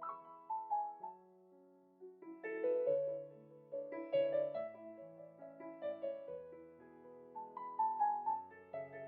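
Background piano music: soft, slow chords and melody notes.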